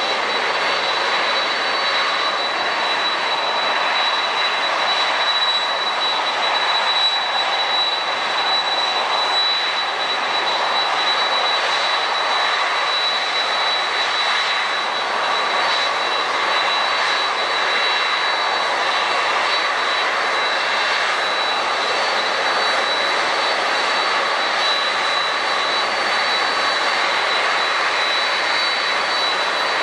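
Jet airliner engines running steadily: a constant loud rush with a steady high whine on top, neither rising nor fading.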